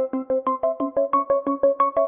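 Background music: a fast, even run of keyboard notes, about six a second, repeating a short melodic figure.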